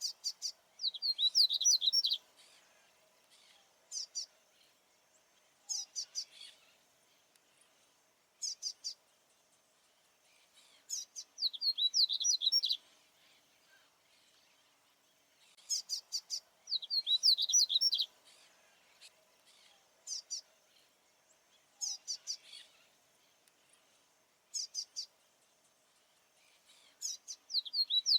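A male papa-capim baianinho seedeater singing: short bursts of high notes and, every several seconds, a longer phrase of quick, clear whistled notes that sweep up and down.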